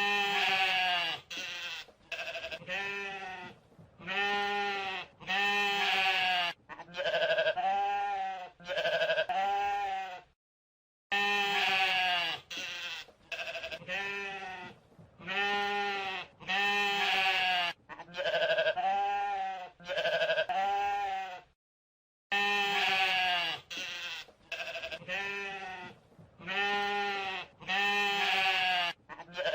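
A flock of ewes bleating, a dozen or so short baa calls following one another closely. The same sequence of calls plays three times over, with a short break of silence between each run.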